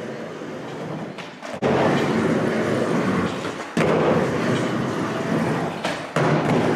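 Skateboard wheels rolling on pavement with a few sharp clacks and thuds from the board, the level jumping abruptly a few times.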